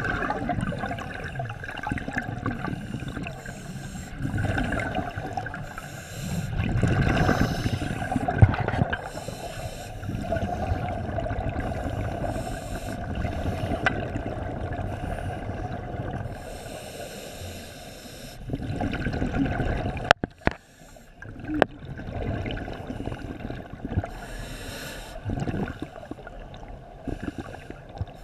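Scuba diver breathing through a regulator underwater: the hiss of each inhalation through the demand valve alternates with the rumbling gurgle of exhaled bubbles, in slow breaths a few seconds apart. A single sharp click about two-thirds of the way through.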